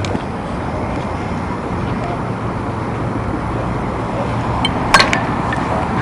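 Steady outdoor rumble and hiss on a handheld camcorder's microphone. A single sharp crack comes about five seconds in, with a fainter click just after it.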